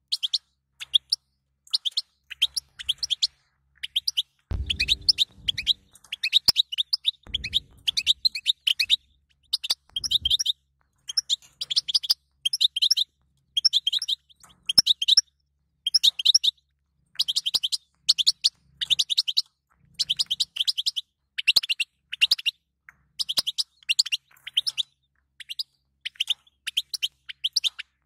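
European goldfinch twittering: clusters of quick, high chirps and trills, one cluster about every second with short gaps between. This is the 'batbata' chatter that goldfinch keepers play to stir male goldfinches into song.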